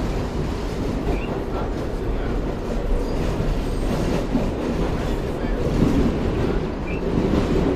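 New York City subway train running, heard from inside the car: a steady, loud din of wheels on the track.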